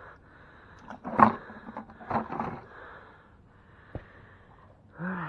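Wire crab trap knocking and rattling against the boat as it is handled. The loudest knock comes about a second in, with a cluster of rattles around two seconds in.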